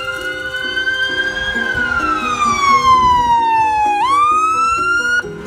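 Electronic siren of an approaching fire-department rescue ambulance sounding a wail: the pitch holds, sinks slowly for a couple of seconds, then climbs back fast and cuts off suddenly near the end.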